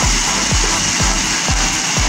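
Vegetables frying in butter in a wok, a steady sizzle, under background music with a steady beat of about two thuds a second.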